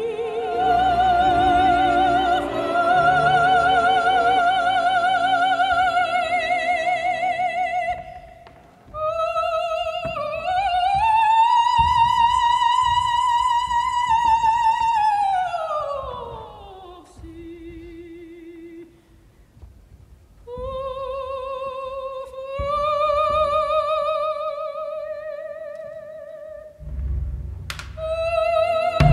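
Operatic singing in a high voice: long, held notes with a wide vibrato, in phrases with short pauses, one note sliding up and later falling away. A low rumble comes in near the end.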